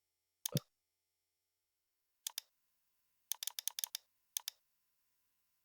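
Scattered clicks from a computer mouse and keyboard: a single click, a pair, a quick run of about six, then one more, with dead silence between.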